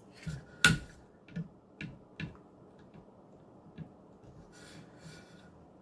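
A few light clicks and knocks at irregular spacing, the loudest under a second in, then a short faint scrape near the end: a knife and an Edge Pro guided sharpener being handled between sets of sharpening passes.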